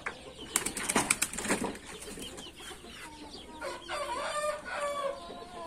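Domestic chickens clucking and calling in short, wavering cries, mostly in the second half. About half a second in, they are preceded by a quick run of sharp clicks.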